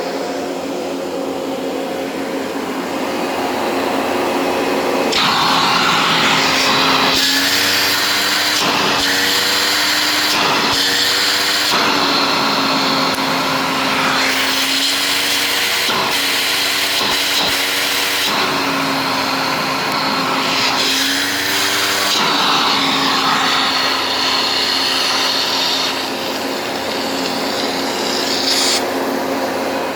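Panasonic Performance Plus MC-6347 upright vacuum cleaner running with a steady motor hum. For most of the stretch a louder rush of air is heard, and the motor's pitch dips briefly several times before the sound settles back near the end.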